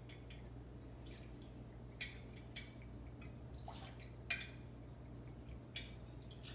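Tequila trickling faintly from a bottle into a metal jigger, with a few small clinks of glass against metal, the loudest about four seconds in.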